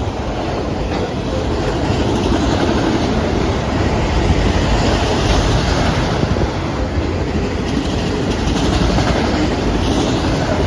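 Norfolk Southern autorack freight cars rolling past, a steady loud rumble of steel wheels on the rails.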